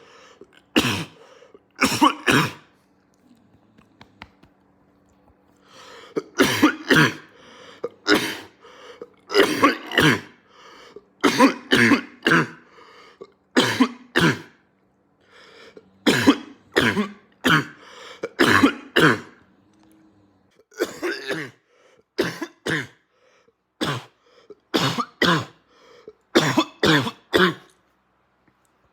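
A man coughing in repeated barking fits. The short, harsh coughs come in clusters of two to four: a few at the start, a pause of about three seconds, then fit after fit.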